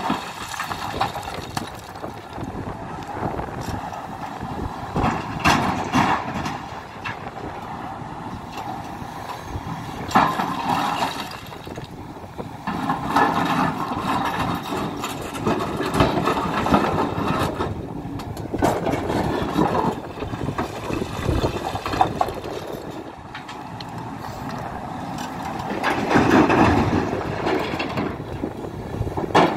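Hidromek 310LC excavator's diesel engine working, rising and falling with hydraulic load several times, with scattered knocks and clanks of rock against the bucket and into the truck bed.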